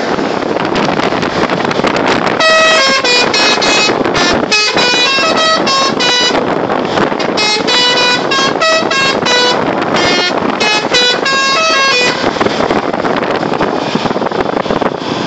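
Telolet horn, the multi-tone musical air horn fitted to buses, playing a fast tune of short, separate notes at changing pitches for about ten seconds, starting a couple of seconds in. A steady rushing noise runs underneath.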